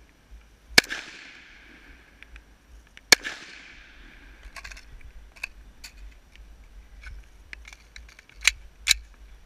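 Two single rifle shots from an Ares Defense SCR, about two seconds apart, each followed by a fading echo. Lighter clicks and two sharper cracks follow near the end.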